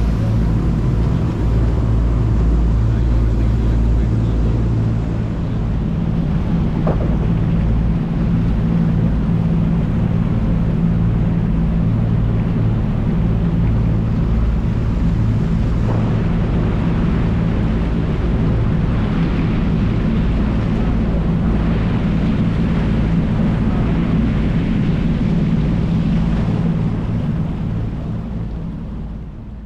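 Fishing boat's engine running steadily, a constant low hum with wind and water noise over it; it fades out near the end.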